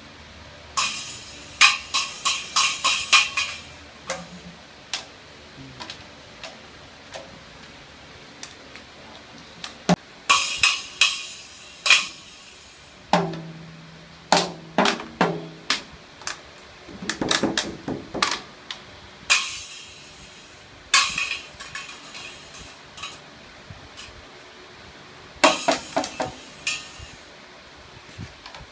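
A child's plastic toy drum kit, its drums and small cymbal struck with sticks. The hits come in irregular flurries of quick strikes, some with a bright ringing clash, with pauses of a few seconds between them.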